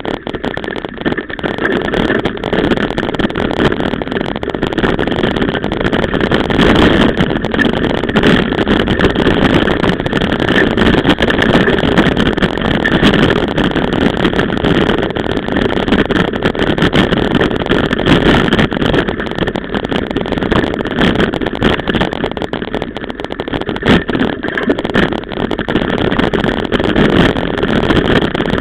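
Mountain bike ridden fast over a rough dirt trail, heard through a camera travelling with it: a steady rumble of wind and tyre noise with constant rattling and knocking as the bike and camera jolt over bumps.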